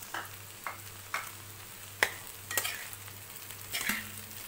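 A metal spatula stirring and scraping in a kadai, mixing noodles into poha: about six separate clinks and scrapes against the pan, the sharpest about two seconds in.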